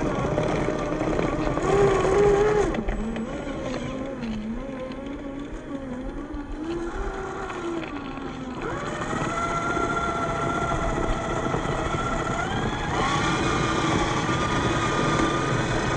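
Electric drivetrain of a Traxxas TRX4 Sport RC crawler, a 550-size 21-turn brushed motor and gearbox, whining as it climbs a steep dirt slope. The pitch wavers low with the throttle, then rises about nine seconds in and steps up again near the end.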